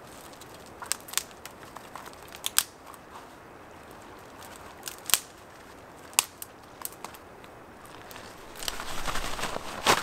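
Scattered sharp clicks and knocks, one or two at a time, from hard objects handled on stony ground. A rustling swells near the end.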